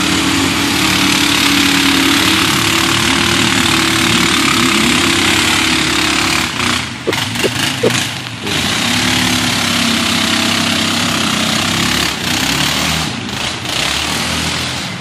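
ATV (four-wheeler) engines running hard under load as the quads are ridden. The sound dips briefly about halfway through, with a few short clicks, then picks up again.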